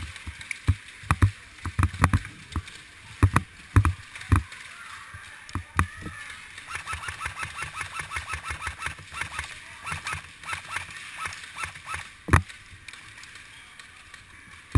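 Airsoft guns firing in an indoor CQB game, amid thumps and knocks of gear banging against a body-worn action camera. About halfway through comes a quick, even run of ticks lasting several seconds, and a single hard knock follows near the end.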